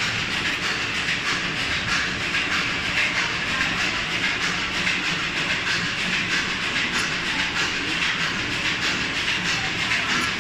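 Automatic tape-cutting machine with an inkjet printer head running, feeding, printing and cutting white ribbon: a steady, fast, even mechanical clatter over a hiss.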